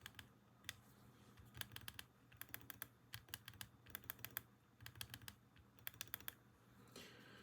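Faint, sharp clicks of a mouse with Huano silent switches being pressed, in quick clusters of two to four clicks. What little noise there is the owner puts down to the mouse's body rather than the switch.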